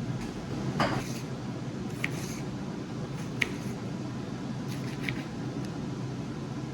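A few light clicks and clinks, spaced a second or more apart, over a steady low hum.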